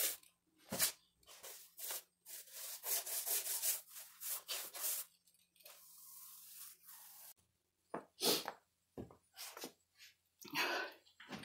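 Paintbrush bristles scrubbing back and forth on a rough plastered wall, brushing on a nopal-mucilage waterproofing wash. Quick rasping strokes come two or three a second, then one longer stroke and a short pause about two-thirds of the way through before the strokes resume.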